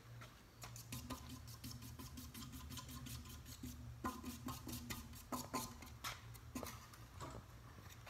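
Impressions four-blade ceiling fan coasting to a stop after being switched off from high: a faint low hum with a run of light clicks, close together at first and spacing out as the blades slow.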